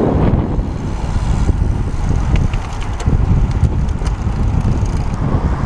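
Wind rushing over the microphone of a camera worn by a cyclist riding a road bicycle: a loud, steady low rumble.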